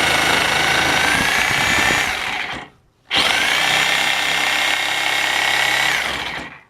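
DeWalt DWE304 corded 10-amp reciprocating saw running in two long bursts, with a steady whine, as it cuts into a piece of wood. The trigger is let off about two and a half seconds in, and the saw starts again about half a second later.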